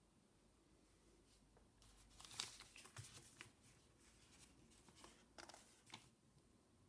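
Faint rustling and crinkling of old printed paper sheets as they are handled and laid over an open manual, in two bouts of crackles, about two seconds in and again about five seconds in.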